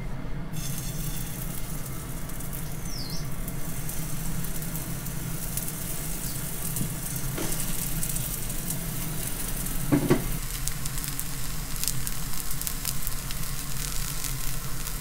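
Daikon mochi patties sizzling in hot oil in a frying pan, a steady sizzle that starts as they go in. A single sharp knock sounds about ten seconds in.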